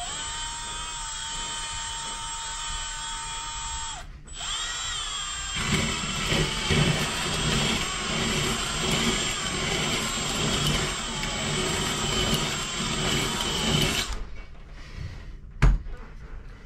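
Drill spinning a flex hone in a motorcycle cylinder bore to lay down fresh cross-hatching. It runs with a steady whine, stops briefly about four seconds in, then runs again louder and rougher, with scraping noise, until it stops about fourteen seconds in. A single sharp knock comes near the end.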